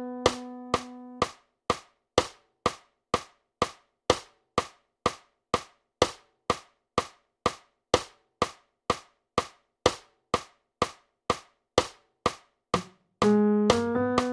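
Metronome clicks from music-notation playback ticking steadily, about two a second, through a rest in the score. A held note ends about a second in, and notes come back in about a second before the end.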